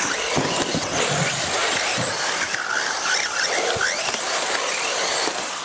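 Radio-controlled racing cars running around the track, their motors whining and sliding up and down in pitch over a steady rushing noise.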